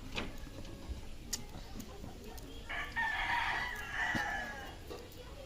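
A rooster crowing once, about three seconds in, for about two seconds.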